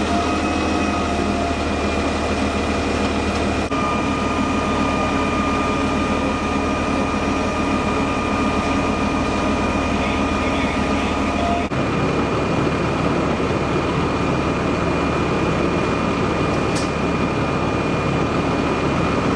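Fire apparatus diesel engine running steadily at high idle, a heavy continuous drone with a steady high whine on top. The sound shifts abruptly twice.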